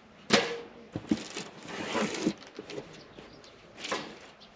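Packaging being handled while a box is opened: a sharp knock about a third of a second in, then a run of short rustles and knocks, and another rustle near the end.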